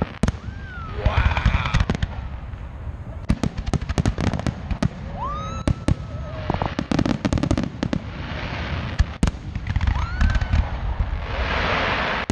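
Aerial fireworks display: repeated shell bursts going off, with dense runs of rapid crackling and a few rising whistles.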